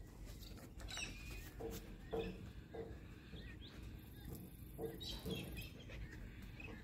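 An Australian shepherd breathing and sniffing faintly in short puffs, a few in a row.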